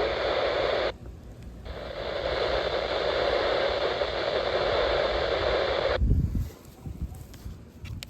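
Steady hiss of radio static from a receiver. It cuts out briefly about a second in, returns, and stops abruptly about six seconds in.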